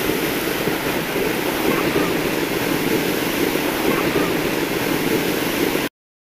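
Water gushing and spraying under pressure from a leaking drinking-water pipeline, a steady rushing sound that cuts off abruptly near the end. The pipeline is leaking and the water runs to waste.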